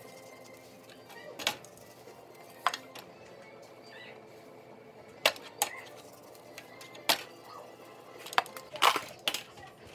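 About eight sharp clicks and clinks, bunched toward the end, as a seasoning shaker bottle is shaken and pork chops are handled on a metal pizza pan.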